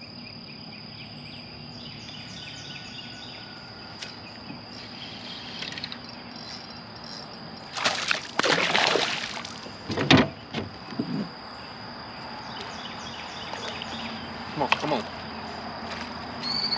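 Insects calling steadily in the background. About eight seconds in, a hooked bass splashes at the surface for a second or two, followed by a couple of sharp knocks.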